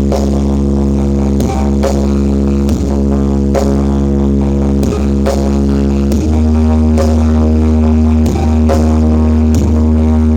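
Loud music played through a large horeg sound system at a sound check, dominated by heavy sustained deep bass notes over a slow beat; the bass line shifts to a new note about six seconds in.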